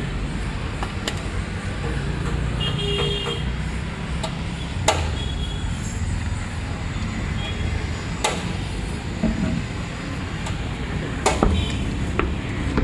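Steady street-traffic rumble with a short car-horn toot about three seconds in and four sharp knocks spread a few seconds apart.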